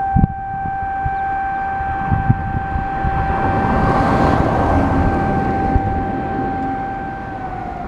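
Outdoor disaster-prevention radio horn loudspeaker sounding the moment-of-silence siren for the Great East Japan Earthquake: one long steady tone that begins to fall in pitch near the end as the siren winds down. A rushing noise swells and fades in the middle, and low gusts of wind buffet the microphone.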